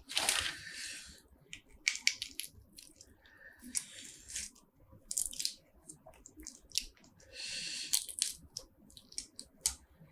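Mukbang eating sounds of spicy seafood: wet tearing and chewing as shellfish and squid are pulled apart and eaten, with a longer burst of tearing near the start and another about eight seconds in, and short sharp clicks in between.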